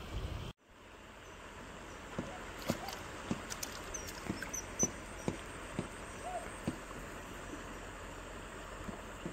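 Quiet open-air ambience by a reedy riverbank, with irregular soft ticks and rustles about two or three times a second from handling the fishing rod, line and fish among the reeds, and a few faint high bird chirps about halfway through. The sound cuts out suddenly for a moment half a second in.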